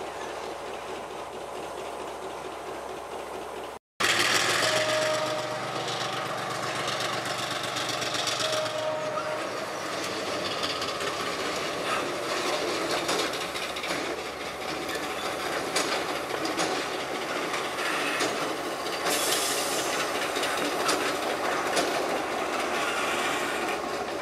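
EMD diesel-electric locomotives rolling slowly past at close range, their diesel engines running with wheels clicking over the rail joints. The sound jumps louder about four seconds in, and two short squeals follow soon after.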